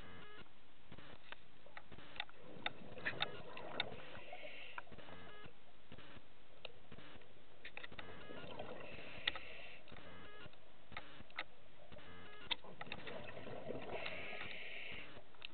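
Scuba diver breathing through a regulator underwater: slow breaths, each a hissing inhalation followed by exhaled bubbles rushing and crackling with sharp clicks, about three cycles.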